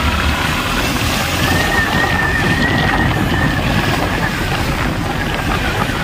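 Wind rushing over the microphone of a moving motorcycle, with the bike's engine running underneath. A faint high whine holds for a couple of seconds in the middle.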